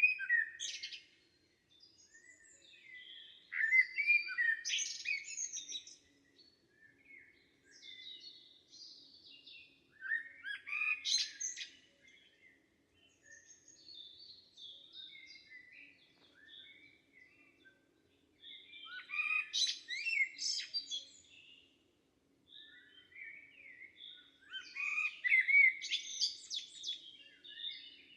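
Forest songbirds singing: varied, warbling song phrases, with louder bursts of song every few seconds and quieter calls in between.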